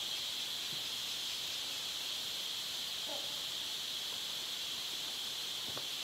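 Steady high-pitched drone of rainforest insects, with a couple of faint short calls about three seconds in and again near the end.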